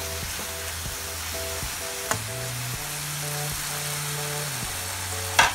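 Eggplant slices frying in oil and soy sauce in a wok, sizzling steadily, with a single sharp knock near the end. Soft background music with held notes plays underneath.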